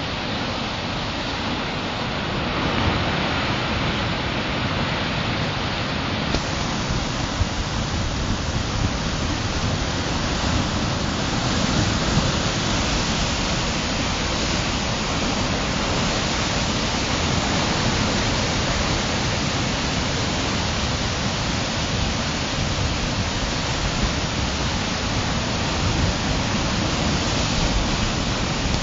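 Heavy storm surf churning in a rocky cove and breaking against the rocks: a continuous dense rush of water that swells a little now and then.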